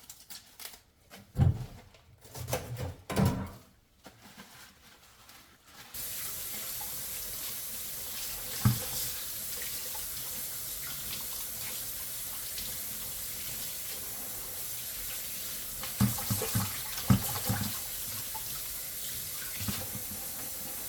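A few knocks and clatters, then a kitchen tap turned on about six seconds in, running steadily into a sink, with occasional thuds of things being handled under the water.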